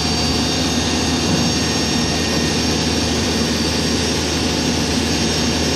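A backhoe's diesel engine running steadily.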